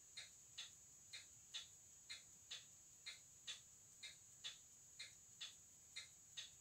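A Bifora caliber 130 mechanical watch movement ticking faintly, about two ticks a second in uneven pairs with short and long gaps alternating, over a steady thin high whine.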